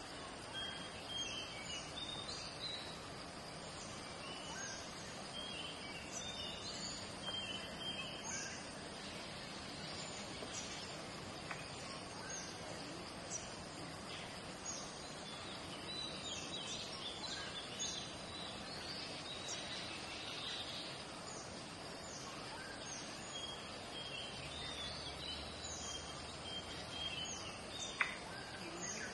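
Outdoor ambience: birds giving short high chirps again and again over a steady high-pitched insect drone and a low background hiss.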